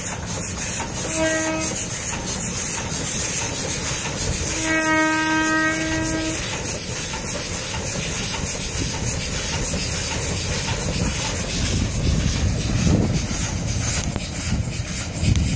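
Steam locomotive whistle blowing twice on one pitch: a short toot about a second in and a longer blast of about a second and a half a few seconds later. Under it runs the steady rumble and rail clatter of the train moving away.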